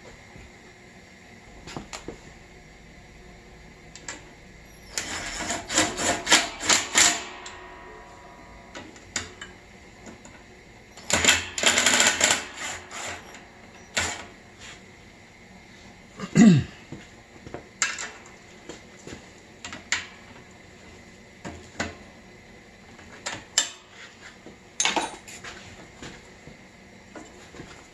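Cordless impact driver hammering a fastener into a metal electrical box, in two rattling runs of about two seconds each, with scattered metal clicks and taps of handling between them.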